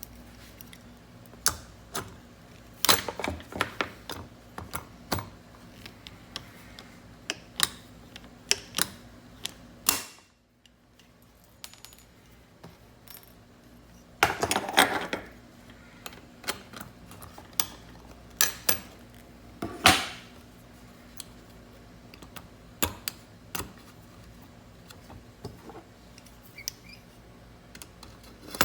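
Irregular clicks and knocks of hard plastic and metal parts being handled and fitted during hands-on repair of a car door armrest's handle mounting. The taps come a few at a time with pauses between, with a denser patch of rattling about halfway through.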